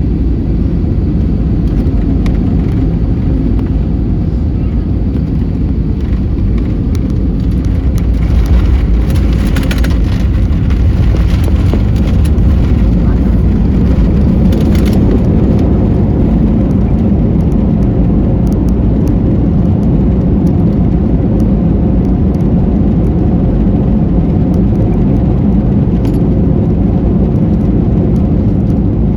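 Airliner cabin noise during landing: a loud, steady low rumble of engines and rushing air, with some brief rattling about a third of the way in.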